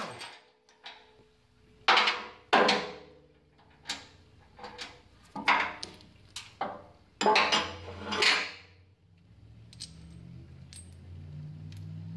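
Sharp metallic clanks and clinks, about six over the first eight seconds, some ringing briefly, from half-inch nuts, serrated washers and bolts being taken off the fan's steel bearing mount. A low steady hum sets in near the end.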